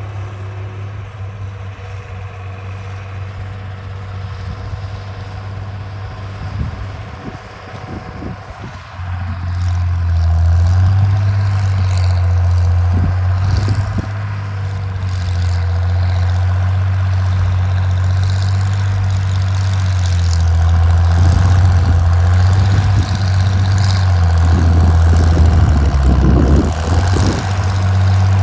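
International 606 tractor's engine running steadily under load while pulling a three-bottom plow. It grows louder as the tractor comes closer, most sharply about nine seconds in.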